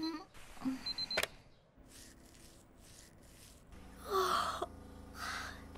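Electronic alarm clock beeping in short rapid runs, with a girl's sleepy groans, then a sharp click about a second in as it is switched off. About four seconds in, over a low steady train rumble, a girl gives a long yawn, followed by a shorter sleepy sound.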